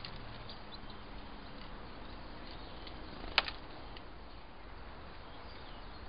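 A single sharp knock on the wooden bird table about halfway through, with a smaller one just after, as wood pigeons move about on it, over a steady low outdoor background with faint small ticks.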